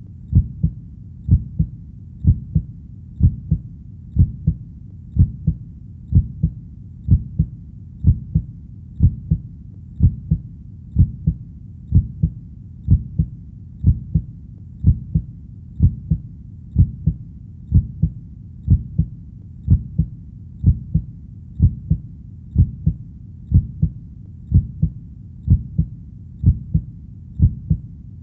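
Heartbeat sound: a steady train of low thumps at about one beat a second.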